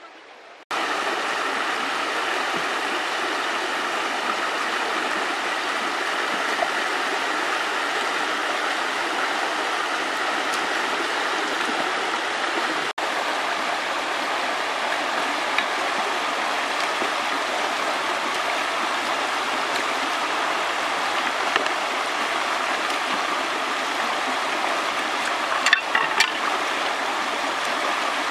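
Shallow, muddy river running fast over rocks: a steady rush of water. A few short splashes near the end.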